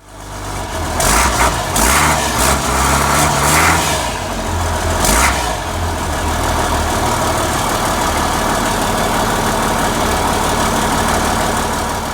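International DT466E inline-six diesel engine, straight-piped, revved in a few short blips during the first five seconds, then running steadily.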